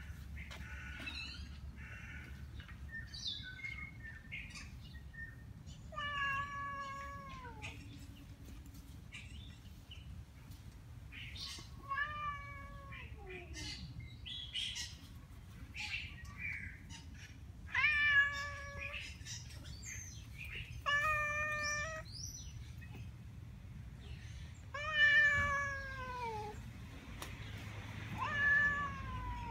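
Tabby cat meowing angrily, six long drawn-out meows a few seconds apart, several sliding down in pitch at the end.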